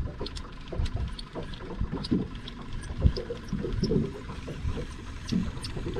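Water lapping and knocking against the hull of a small outboard boat in uneven low thumps, with light wind on the microphone and scattered faint clicks.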